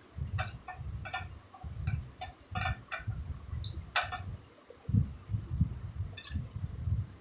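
Close-up eating sounds: a person chewing food, with irregular wet mouth smacks and clicks over a low, pulsing rumble.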